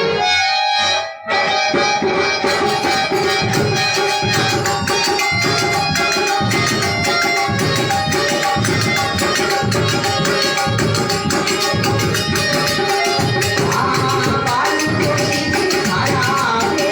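Instrumental interlude of a Rajasthani folk bhajan: dholak drumming in a fast, steady rhythm with jingling percussion and held melodic tones above. After a brief break about a second in the drums start up, and the jingling joins a second or so later.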